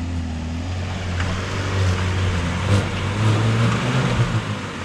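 Jeep Cherokee engine pulling under a little throttle as the vehicle crawls over off-road ground. The note rises slightly about three seconds in, then eases off, with a few sharp clicks over it.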